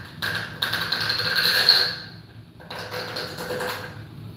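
Reaming out the base of a 3D-printed plastic rocket cartridge: two scraping bursts, one of nearly two seconds and a shorter one after a short pause. The reaming clears the elephant foot left at the base by printing, so the boost charge can pass through.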